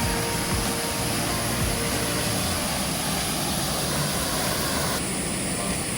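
Waterfall and river water rushing, a loud, steady roar with a slight change in tone about five seconds in.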